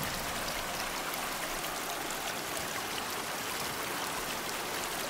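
Shallow stream flowing over pebbles: a steady, even rush of running water.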